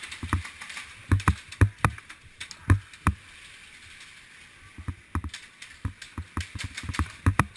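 Irregular sharp snaps and knocks, single and in quick runs of two or three, with a low thud in each, from an indoor airsoft game; they pause for about a second and a half midway, then come thick and fast near the end.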